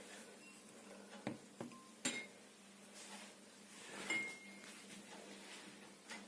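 A few faint knocks and a brief ringing clink of small dishes or containers being handled and set down.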